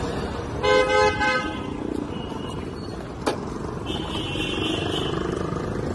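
A vehicle horn sounds once for about a second, over steady street traffic rumble. A single sharp click comes a little after the middle, and a thin high tone sounds near the end.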